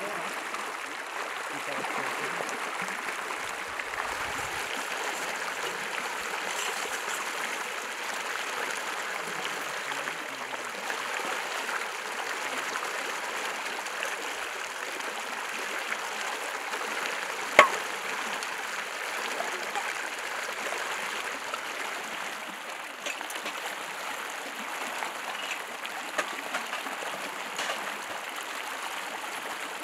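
Fast-flowing river rushing steadily over rocks, with light clatter of metal dishes being washed at the water's edge and one sharp knock a little past halfway.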